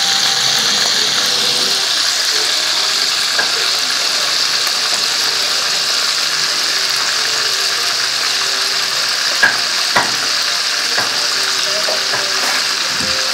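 Hot oil sizzling steadily in a frying pan as a small piece of food deep-fries in it, with two sharper pops about two-thirds of the way through.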